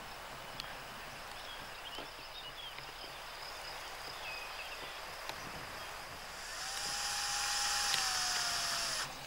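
Hand-held power drill running for about two and a half seconds in the second half, with one steady motor whine that sags a little just before it cuts off sharply. Before it, only faint outdoor background with a few small clicks.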